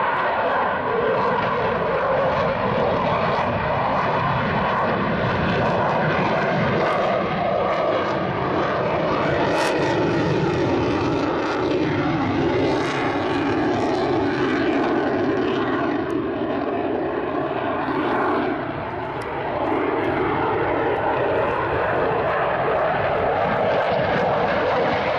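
Loud, continuous jet noise from a Eurofighter Typhoon's twin Eurojet EJ200 turbofan engines as it flies overhead, the engine whine gliding slowly up and down in pitch. It is briefly quieter about three quarters of the way through.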